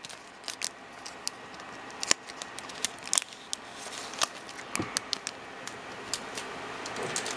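Foil wrapper of a Pokémon trading card booster pack crinkling in the hands as it is opened and the cards are slid out: scattered sharp crackles and clicks.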